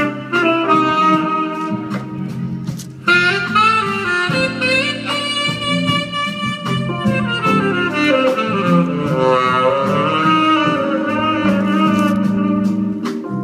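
Live jazz: a tenor saxophone plays a melody of sustained and moving notes over a band with a bass line and light percussion strokes.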